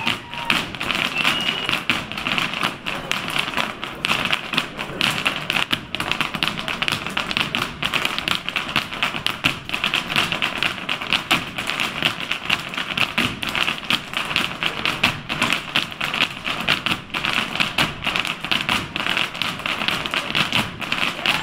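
Irish step dancers' hard shoes striking a wooden dance floor in unison: a rapid, continuous clatter of heel and toe taps.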